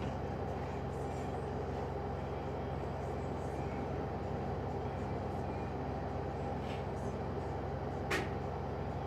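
LG washing machine drum spinning steadily at high speed on the cotton spin cycle, a constant hum with fixed low tones. A single short tick about eight seconds in.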